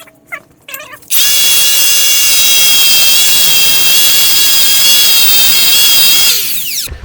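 A handheld power tool running at high speed with a steady high-pitched whine for about five seconds, then spinning down, used to clean up a part.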